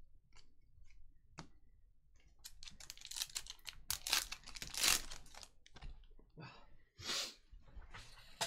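A trading-card pack wrapper being torn open and crinkled. The rustling tears run from about two and a half seconds in and are loudest in the middle, with another short crinkle near the end.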